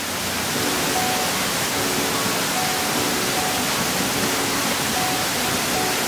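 Waterfall: a steady rush of falling water, with faint background music underneath.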